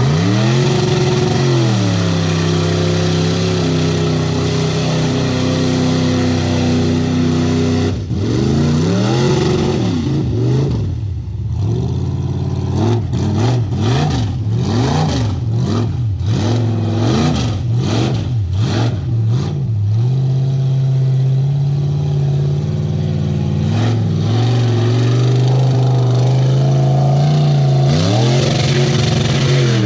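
LS-swapped 6.0 L V8 with headers in a lifted Jeep Wrangler YJ, revving as it pushes through deep water. The revs rise at the start, swing up and down rapidly over the middle stretch, settle, then climb again near the end.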